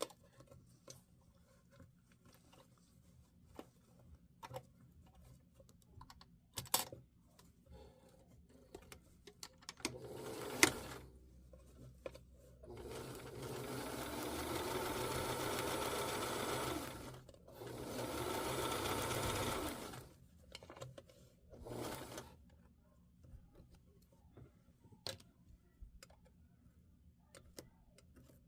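Sewing machine stitching a second row of stitching along a jeans zipper: a short burst, then two runs of a few seconds each with a brief stop between, and another short burst. Scattered small clicks fill the quiet stretches.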